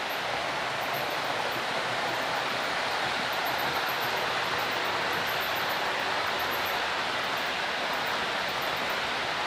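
Model freight train of container wagons rolling along the track: a steady rushing noise of the wheels on the rails, growing slightly louder in the first second and then even.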